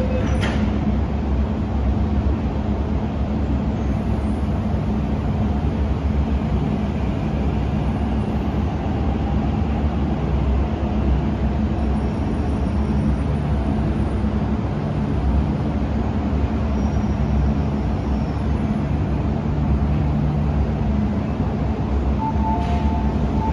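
CNR Changchun-built MTR C-Stock electric multiple unit pulling out of the station and running away along the platform: a steady low rumble of traction motors and wheels with a low hum. There is a knock about half a second in, and a brief two-note tone comes in near the end.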